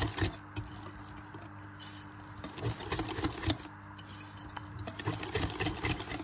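Wire whisk beating thick rice-flour and coconut-milk batter in a glass bowl, its wires clinking and scraping against the glass in quick strokes. The strokes come in three bursts, near the start, about three seconds in and near the end, over a faint steady hum.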